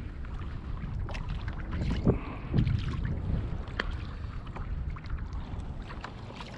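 Wind buffeting the microphone and choppy water lapping against a kayak's hull, with a few short knocks and clicks from gear on the boat.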